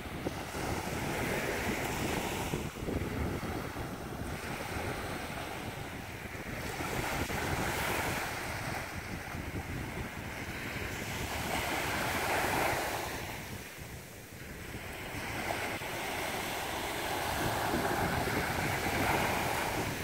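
Small surf waves breaking and washing up a sandy beach, swelling and fading every few seconds, with wind buffeting the microphone.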